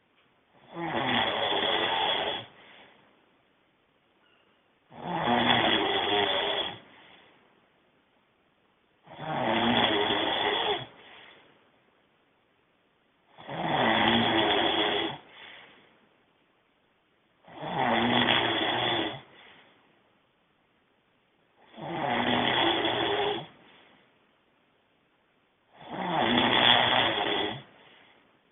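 A man snoring loudly in his sleep, one long rasping snore about every four seconds, seven in all. Each snore trails off into a fainter sound, with near silence before the next.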